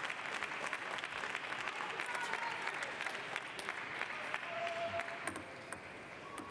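Crowd of spectators clapping in a sports hall, with a faint held tone entering about four and a half seconds in.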